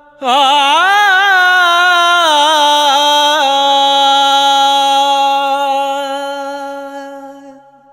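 Male voice singing a Bhojpuri song: one long note that comes in just after the start, wavers and slides in pitch for about three seconds, then is held steady and fades out near the end, over a steady drone.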